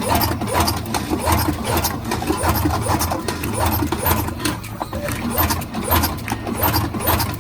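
Duplo CC-228 business card slitter running: a steady motor hum under a rhythmic mechanical clatter about twice a second as the sheets are fed through the rollers and slit into cards.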